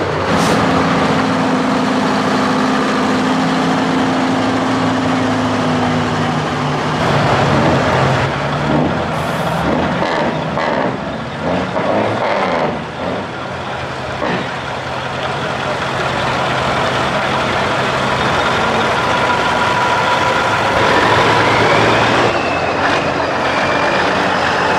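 Heavy diesel semi-truck engines running as the trucks move off and pass by, a steady engine note at first, then a louder, noisier stretch, then steady running again. A rising whine comes in near the end.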